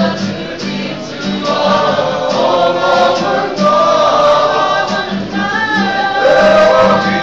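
A group of young people singing a Maori song together as a choir, girls' and boys' voices mixed.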